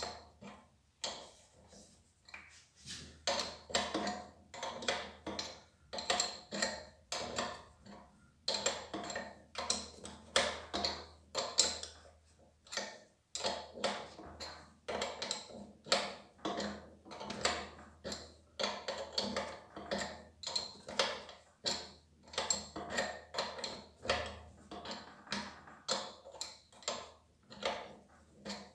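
A 17 mm spanner clicking and clinking against the brass overflow valve fitting of a pressure washer pump in repeated short strokes, about one to two a second, as the valve is tightened.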